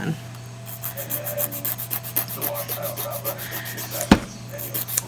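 Nail file rasping over short fingernails in quick, even back-and-forth strokes, rounding off the corners, with one sharp knock about four seconds in.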